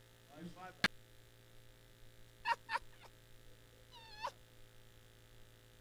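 Steady electrical mains hum, with a sharp click about a second in and a few short, faint high-pitched squeals in the second half, the last one gliding up and down.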